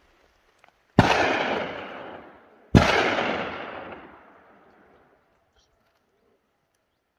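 Two gunshots from a hunting gun, about a second and three-quarters apart, each followed by a long echo that dies away over a couple of seconds.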